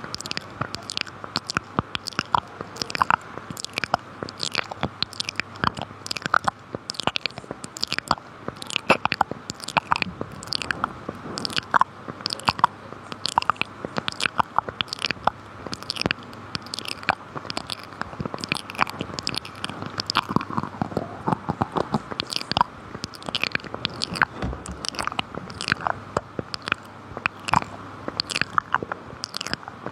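Close-miked ASMR mouth sounds: a continuous run of rapid clicks and smacks from the lips and tongue, several a second.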